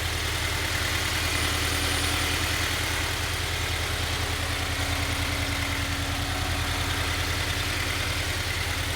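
Healthy FA20 2.0-litre flat-four boxer engine idling steadily, with an even low pulse and no rod knock.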